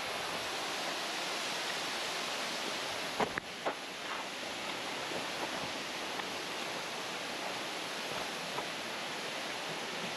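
Waterfall rushing in a steady, even hiss of falling water. A few short knocks sound about three and a half seconds in.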